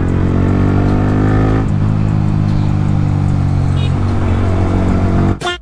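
Yamaha R15M motorcycle's single-cylinder engine pulling under acceleration at road speed. The note falls at a gearshift about a second and a half in, then holds steady. The sound drops out briefly just before the end.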